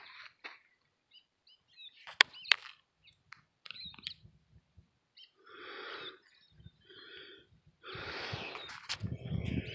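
A person breathing heavily, several breaths about a second apart in the second half, with two sharp clicks about two seconds in.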